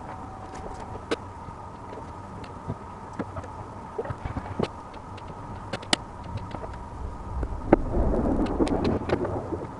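Small sharp clicks and taps of nickel strips and cells being handled on a lithium-ion battery pack in plastic cell holders, with a louder stretch of handling rustle and knocking near the end.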